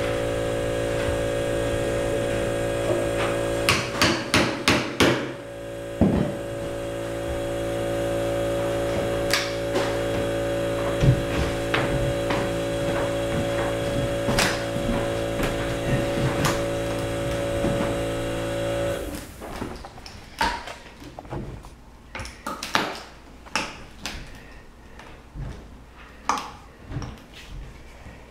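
Handheld power saw running steadily as it cuts into the base of a wooden newel post, with sharp knocks as the blade catches. The saw stops about two-thirds of the way through, followed by scattered knocks and thumps as the cut post is rocked loose.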